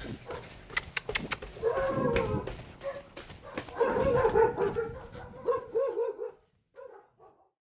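A dog barking and whining in short, wavering calls, over sharp footsteps on concrete.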